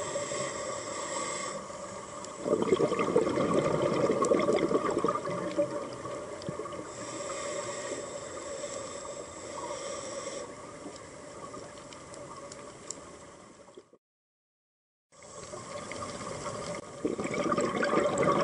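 A scuba diver breathing through a regulator underwater: a hissing inhale alternates with louder, bubbly exhalations. The sound cuts out completely for about a second past the middle.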